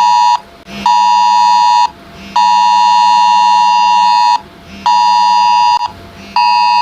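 iPhone Wireless Emergency Alert attention tone for an Amber Alert: a loud, buzzing two-tone alarm beeping in a fixed cadence, about one second on and half a second off, with one longer two-second beep in the middle.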